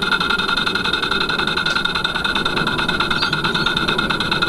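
Model vertical steam mill engine, 28 mm bore and 30 mm stroke, running on steam with its exhaust led through an experimental choof valve, giving a rapid, even choofing beat.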